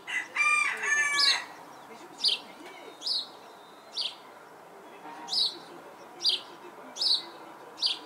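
A bird repeating a short, high chirp about once a second, with a longer, louder call of several stacked notes about half a second in.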